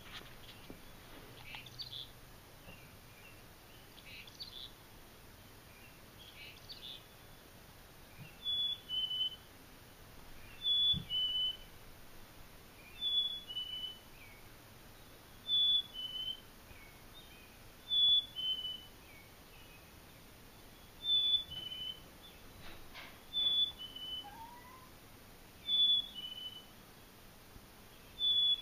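Recorded black-capped chickadee song played from a laptop's speaker: the clear two-note 'fee-bee' whistle, a higher note stepping down to a lower one, repeated about every two and a half seconds from about a third of the way in. Short high chirps come before it.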